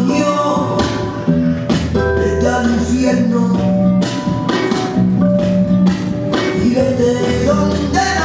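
Flamenco music: a singing voice and guitar over sustained low notes, with sharp percussive strikes every so often.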